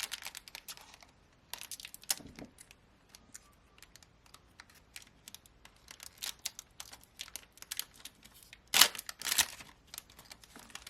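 A trading-card booster pack's foil wrapper being torn open and crinkled: scattered sharp crackles, with the loudest tearing about nine seconds in.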